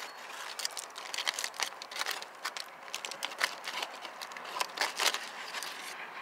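Aluminium foil crinkling and crackling as a long knife saws through a cooked steak resting on it and scrapes the foil: a quick, irregular run of sharp clicks and rustles.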